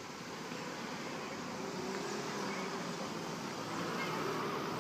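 Outdoor street noise with a motor vehicle's engine hum, growing a little louder over the last couple of seconds.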